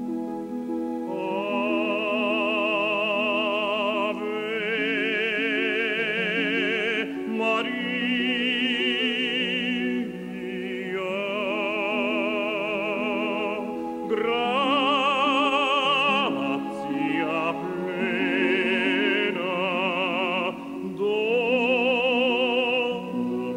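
Operatic singing: long held notes with wide vibrato, in phrases of a few seconds with short breaks, over steady sustained accompaniment.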